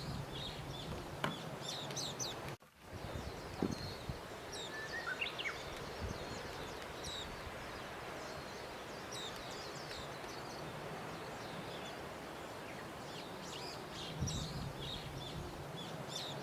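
Small birds chirping over a steady background hiss, with a few faint knocks.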